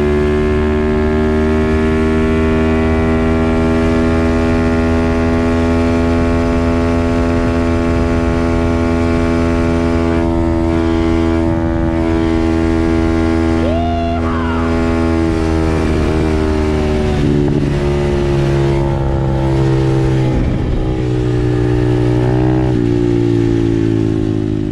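Dirt bike engine running at a steady cruise on the road, holding one pitch for about fourteen seconds. Its note then dips slightly and changes pitch a few times in the last third.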